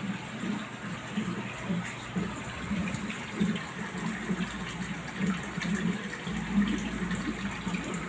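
Aquarium filtration running: a steady rush of moving water with irregular low bubbling gurgles.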